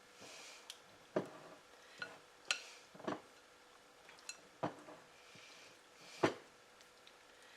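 A utensil folding a thick, creamy pie filling in a mixing bowl: soft swishing and scraping, with about seven irregular knocks of the utensil against the bowl. The loudest knock comes near the end.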